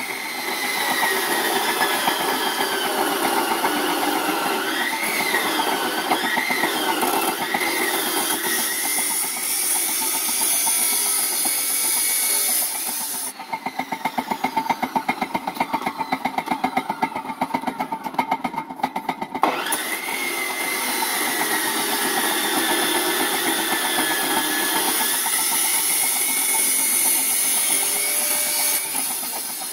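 Crown cut-off saw motor running free with a high whine over the steady running of a belt-driven generator rig. The saw's whine cuts out about 13 seconds in, leaving a fast-pulsing running sound, then spins back up about 20 seconds in.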